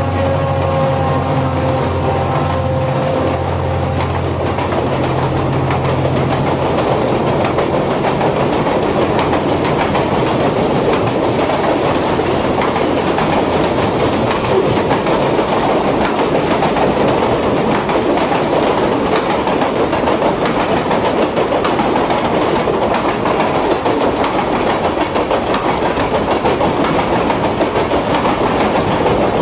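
A train running along its track, its wheel and rail noise continuous. A steady low hum under it fades out in the first several seconds.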